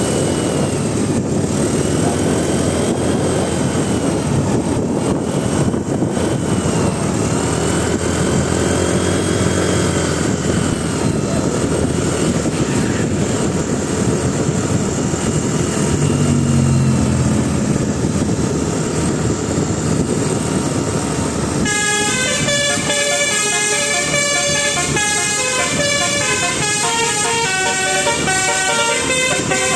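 Bus engine and road noise with repeated rising-and-falling horn tones, then, about two-thirds of the way in, a telolet musical horn (Basuri multi-tone horn module) playing a quick melody of separate notes.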